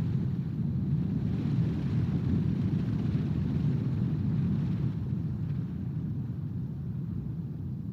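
Wind buffeting an outdoor nest-cam microphone: a steady low rumble that swells in a gust from about one to five seconds in, then eases.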